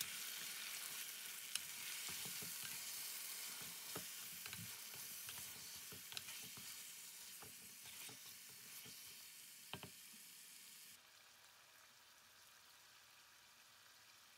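Chicken pieces and chopped tomato sizzling in a hot pan as a wooden spatula stirs them, with a few sharp knocks and scrapes of the spatula against the pan. Late on the sizzle drops suddenly to a softer hiss.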